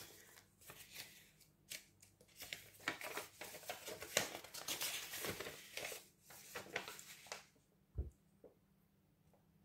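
Paper cards and envelopes being handled: irregular rustling and crinkling for about seven seconds, then a single soft thump about eight seconds in.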